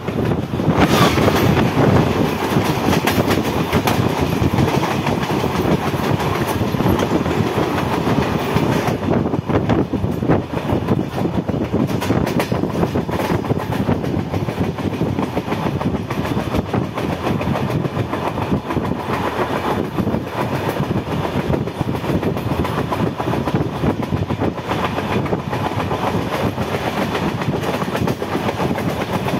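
Passenger train running along the track, heard from aboard: a steady rumble of wheels on rail with clicking as the wheels pass over rail joints, a little louder over the first several seconds.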